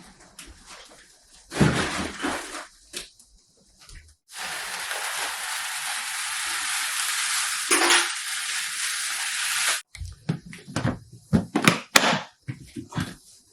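Household handling sounds: knocks and clatter of objects being set down and moved. In the middle comes a steady rushing noise lasting about five seconds that starts and stops abruptly, followed by more quick knocks and clinks.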